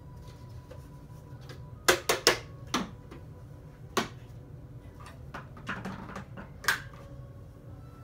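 Clicks and rattles of a clear plastic container handled and tapped as dry debris is shaken from it onto a shag rug: a quick run of four clicks about two seconds in, another single click about halfway, a short rustle, then a last sharp click near the end.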